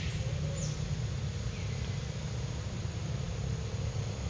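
Steady low outdoor rumble, with a few faint, short, falling chirps.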